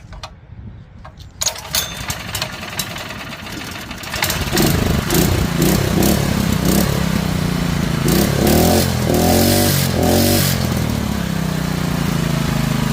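Honda GX160 single-cylinder engine, freshly rebuilt with its governor removed, started for the first time. A few clicks come first, it catches about a second and a half in and picks up about four seconds in. Its speed rises and falls for several seconds, then settles into a steady run near the end.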